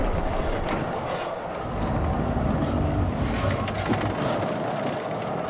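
Wooden cable-tool drilling rig's machinery working: a continuous low rumble with rattling, clanking knocks and a faint steady whine.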